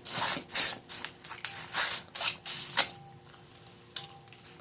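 Crawfish being cracked, peeled and eaten by hand: a string of short, irregular crackles, clicks and wet mouth sounds, thick for the first few seconds and then sparser, with one sharp click near the end.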